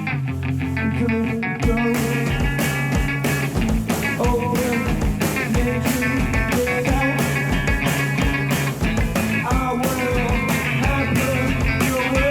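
Rock band playing live, with electric guitar and bass; the drums come in about a second and a half in and keep a steady beat.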